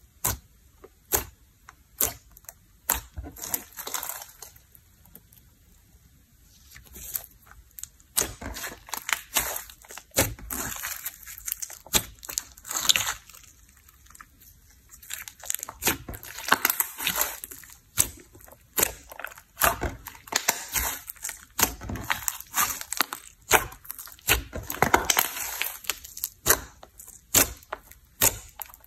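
Hands squishing, poking and stretching a large glossy slime: rapid sticky clicks and pops under the fingers, with longer squelching stretches now and then.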